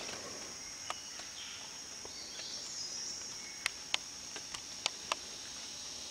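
Forest insects keep up a steady high-pitched drone. About half a dozen short sharp clicks or snaps stand out over it, most of them in the second half.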